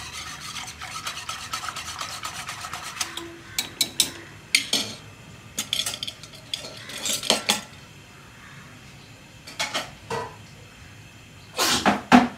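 Wire whisk stirring a thin gram-flour and yoghurt batter in an aluminium pot, rapid rattling scrapes against the metal for the first three seconds. Then a series of separate clinks and scrapes of metal utensils, the loudest near the end.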